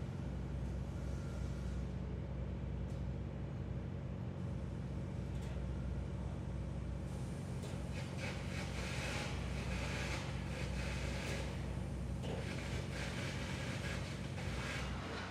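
Steady low drone of heavy construction machinery running, with irregular bursts of noise joining over the second half.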